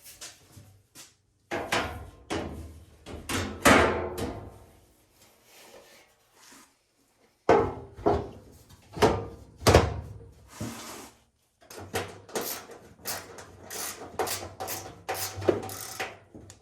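Dryer parts being handled and fitted during reassembly: irregular clunks, knocks and scraping in clusters, with a pause of about three seconds after the first group.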